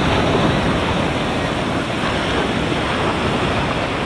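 Sea surf churning and foaming close around the microphone, a steady rushing wash of whitewater, with wind buffeting the microphone.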